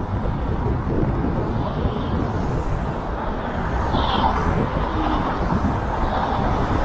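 Steady road and wind noise from a Kia K3 driving along a city street, a low rumble with a brief swell about four seconds in as another car passes alongside.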